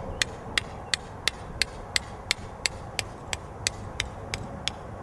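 Small hand hammer tapping a garden gate stake into the ground: a steady, even run of short, sharp strikes, about three a second.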